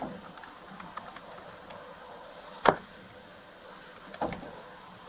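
Two sharp knocks about a second and a half apart, the first the louder, over a low steady hiss.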